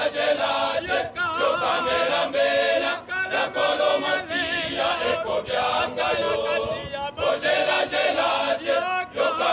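A choir of men and boys singing unaccompanied in several parts, the held notes wavering with vibrato, with short breaks between phrases about three seconds in and near the end.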